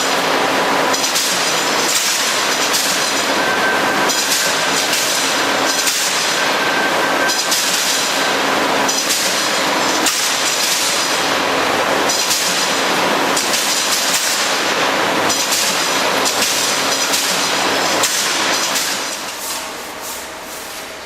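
Wire straightening and cutting machine running: a loud, steady mechanical clatter with surges every second or two. It gets quieter near the end.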